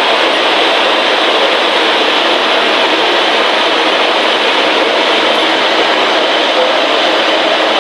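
NOAA Weather Radio receiver hissing with steady static through its small speaker: the KZZ57 transmitter has gone off the air, leaving no signal on 162.475 MHz.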